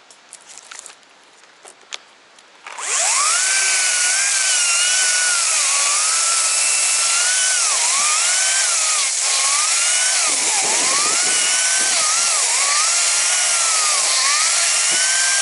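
A few faint clicks, then about three seconds in a chainsaw is throttled up to high revs and keeps running hard. Its pitch sags and recovers again and again as the chain bites into a thick fallen tree trunk.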